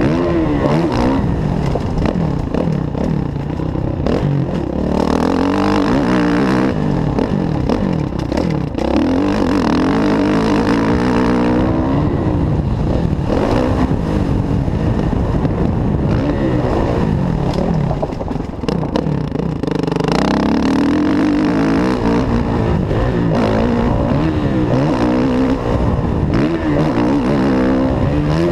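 Kawasaki KX450F's single-cylinder four-stroke engine being ridden hard, its pitch climbing again and again as the throttle is opened and falling back when it is shut.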